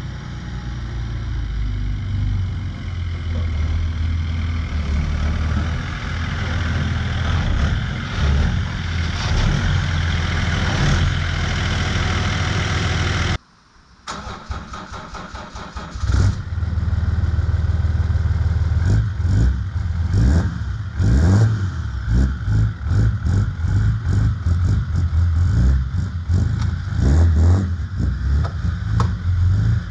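BMW M57 3.0 straight-six turbodiesel, fitted with a custom-fabricated exhaust manifold and a GT2260V turbo, running with the engine note rising and falling. It breaks off suddenly about halfway through, then comes back with repeated short surges of throttle.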